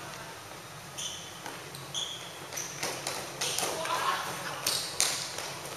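A futsal ball being kicked and bouncing on a hard indoor court, several sharp thuds from about a second in, with short high squeaks of shoes on the sport floor, in a large hall.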